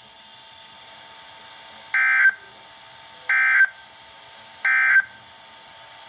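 Midland NOAA weather radio sounding three short digital data bursts, evenly spaced about 1.3 seconds apart, over faint radio hiss: the SAME end-of-message code that closes a warning broadcast.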